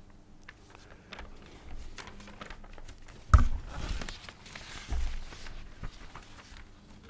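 Paper being handled and rustled against a lectern close to its microphone: scattered light clicks, a sharp knock about three seconds in, then rustling and a second, softer knock.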